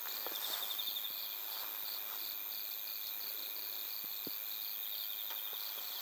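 Night insects calling in a steady chorus: one chirps in even, regular pulses high in pitch, and a faster trill breaks in briefly near the start and again near the end.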